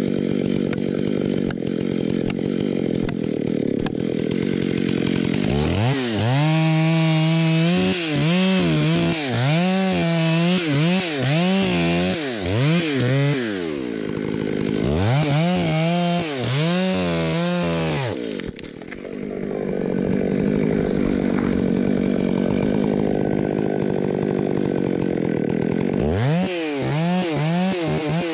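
Stihl MS 661 two-stroke chainsaw running at full throttle in a white fir cut, its note held steady for stretches and, in between, revving up and down about once a second. The engine dips briefly about two-thirds of the way through.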